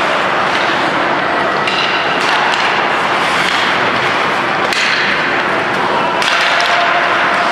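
Ice hockey play in an indoor rink: a steady din of skates on the ice and the arena, broken by several sharp clacks of sticks striking the puck or ice a second or more apart.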